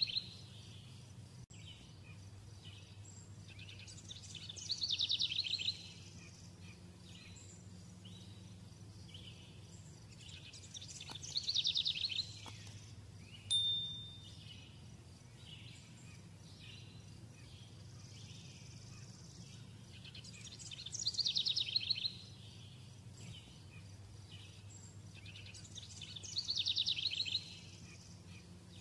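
A bird repeating a short, rapid high trill about every five to six seconds, over a steady low hum.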